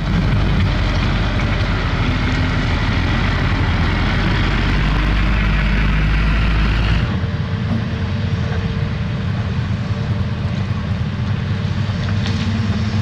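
Diesel engines of heavy road-construction machinery (excavators and dump trucks) running with a steady low rumble. About seven seconds in the sound changes abruptly: the deepest rumble drops away and the engine noise carries on at a slightly lower level.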